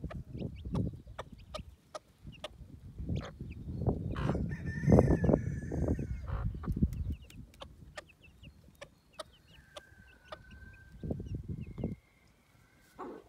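Brahma hen clucking in low, repeated bursts, loudest a few seconds in, while her chicks give short high peeps throughout.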